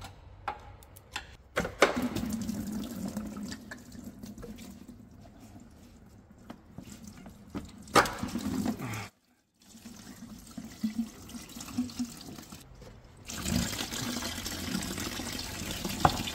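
Coolant draining from the disconnected high-voltage battery cooling pipes, pouring and trickling into a plastic drain bucket, and louder in the last few seconds. A few sharp clicks come as the fittings are worked.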